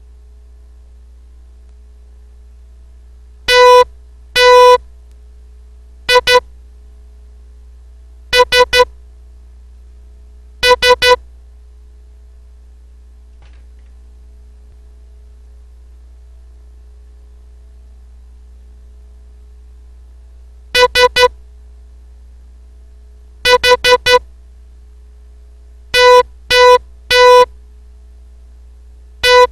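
Morse code practice words sent as a buzzy electronic beep. Short dots and longer dashes come in clusters, with short pauses between letters and a long gap between words. A steady low hum lies underneath.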